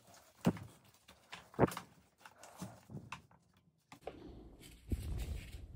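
Plastic headlight mask of a dirt bike being unhooked and handled: a few sharp plastic knocks and clicks about a second apart, then a duller thump near the end.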